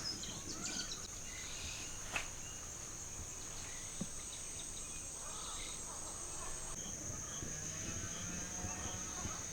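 Evening insects, crickets among them, chirring in a steady high-pitched drone, with faint bird calls. There is one sharp click about two seconds in and a small tick near four seconds.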